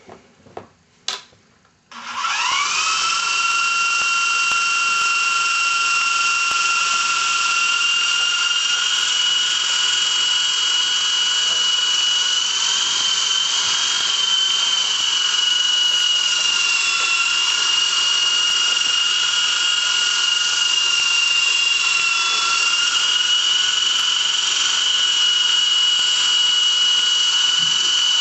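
Electric motor and rotor of a Double Horse RC helicopter spinning up about two seconds in, its whine rising briefly and then running steady and high-pitched, wavering a little in pitch. A few light clicks come before it starts.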